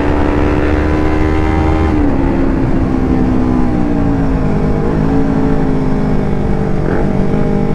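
Yamaha R25's 250 cc parallel-twin engine running at road speed, its pitch easing down in steps as the bike slows, over a steady wind rumble on the microphone.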